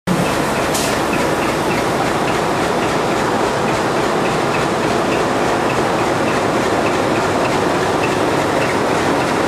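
Diesel locomotive running close by: a loud, steady engine noise with a faint regular ticking.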